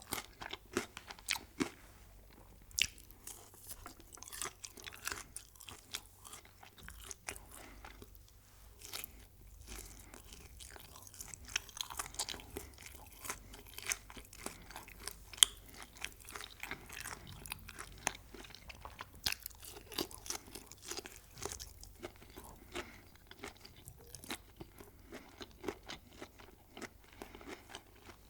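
Close-miked chewing and crunching of food, with many sharp, irregular crunches.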